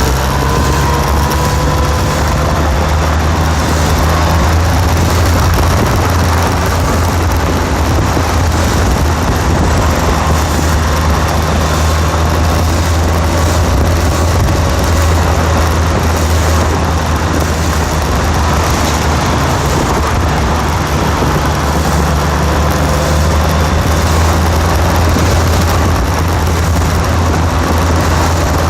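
An engine running steadily with a constant low hum and no breaks.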